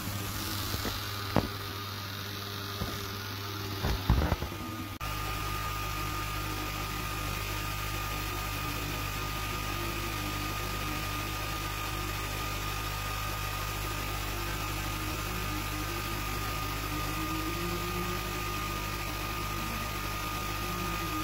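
Sculpfun S30 Ultra laser engraver running as it cuts plywood: a steady fan-and-motor hum with a thin, steady whine. A few sharp clicks come in the first few seconds, and about five seconds in the sound changes abruptly to an even hum.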